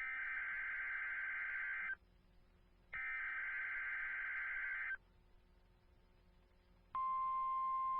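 Emergency Alert System SAME header data bursts: two raspy, buzzing two-second bursts of digital tones, about a second apart. About seven seconds in, the steady 1050 Hz NOAA Weather Radio warning alarm tone starts, signalling a weather radio test.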